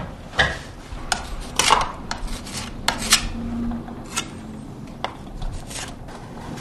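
Short, irregular scraping strokes as patching compound is spread and smoothed into holes in painted wooden trim.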